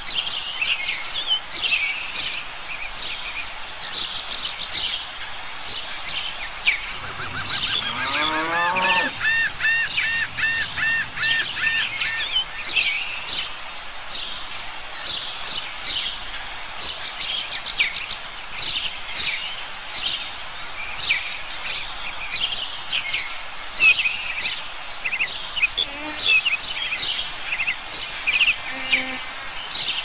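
Birdsong: many small birds chirping and calling together. About seven seconds in, a lower, longer animal call sounds once, followed by a few seconds of a repeated rising-and-falling note.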